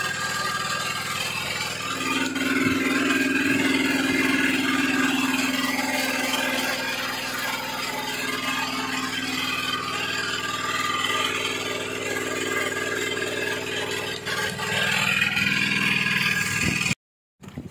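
Engine of a small fishing boat running steadily, with a stronger hum from about two seconds in that eases a few seconds later; it cuts off abruptly near the end.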